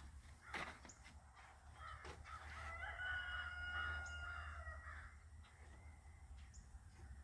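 Faint calls of birds in and around the tree, a little louder between about three and five seconds in.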